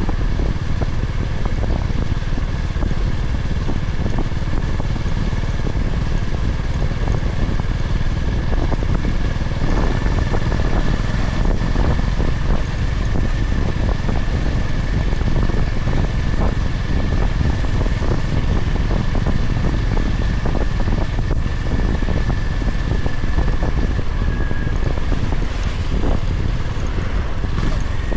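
Honda GB350's air-cooled single-cylinder engine running at a steady cruise under way, mixed with heavy wind rumble on the microphone. A thin steady high tone runs through it, dipping slightly near the end.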